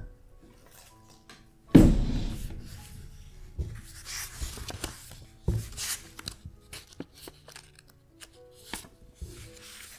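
Background music over desk handling noises: a loud thump about two seconds in, then scattered clicks and rustling of pen on paper as a note is written.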